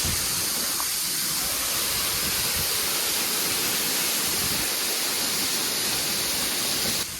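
Waterfall rushing with a steady hiss of falling water and spray, dropping away suddenly just before the end.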